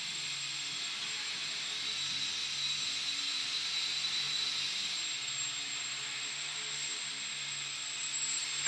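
Electric motor and propeller of an indoor control-line GeeBee model plane running steadily in circling flight, a high whine over a hiss. At the very end it gets louder and its pitch drops sharply as the plane sweeps past.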